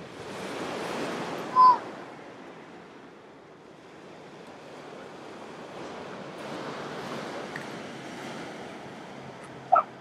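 Waves breaking and washing up a shingle beach, swelling twice, with some wind. Two short, loud cries cut through, one about two seconds in and one just before the end.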